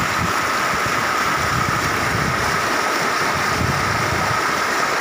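Fast floodwater rushing over a submerged path and breaking white around a metal railing: a loud, steady rush of water.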